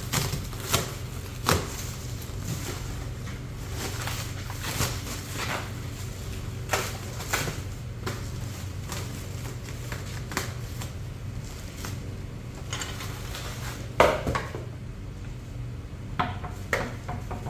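A large cardboard shipping box being cut open and its packing handled: irregular scrapes, rustles and knocks over a steady low hum, with a sharp knock about fourteen seconds in.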